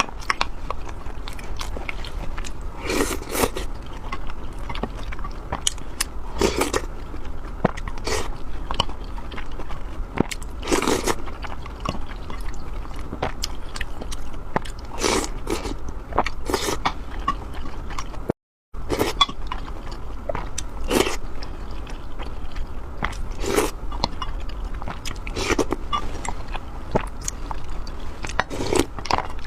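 Close-miked eating: a person chewing with their mouth, with a loud crunchy bite or chomp about every two seconds.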